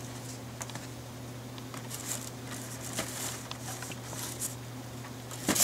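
Plastic blister-pack action figures and a cardboard shipping box rustling and clicking as the packages are lifted out and set down, with a sharper clack near the end.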